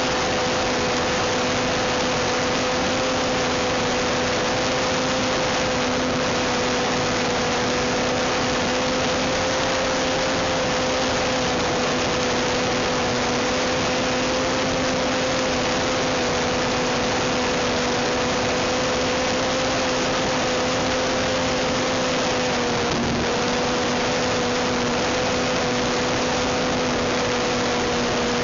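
Cox .049 Black Widow glow engine on an RC model plane running steadily at high revs, a constant high-pitched buzz over a steady hiss, with a brief dip in pitch about three-quarters of the way through.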